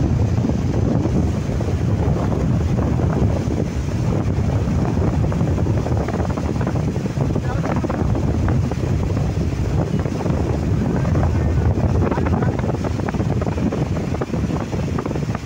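Floodwater rushing steadily over the overflow weir of an overflowing village tank, with wind rumbling on the microphone.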